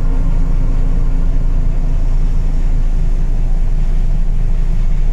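Bus running, heard as a steady low engine and road rumble.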